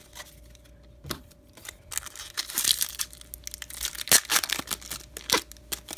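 A baseball card pack's wrapper being torn open and crinkled: quiet at first, then from about a second and a half in a dense run of sharp crackles and rustling.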